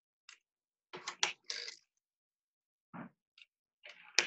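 Circular sock knitting machine being hand-cranked through a heel decrease row: a few scattered clicks and clacks from the needles and cam mechanism, with a sharp click near the end.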